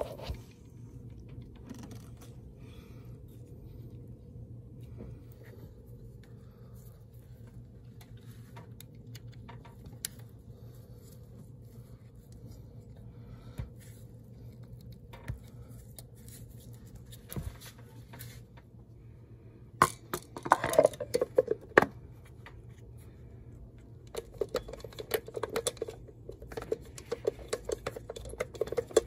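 Small clicks and clacks of hands handling the plastic distributor cap and rotor and a small hex key on a Honda CRX distributor, over a steady low hum. There is a burst of louder clacks about two-thirds of the way through, and a run of rattling clicks near the end as the cap is fitted onto the distributor housing.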